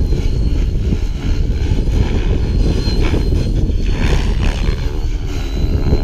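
Align T-Rex 550E electric RC helicopter flying, its rotor and motor noise with a thin steady high whine, rising and falling about halfway through as it manoeuvres. A heavy, uneven low rumble of wind on the microphone runs under it.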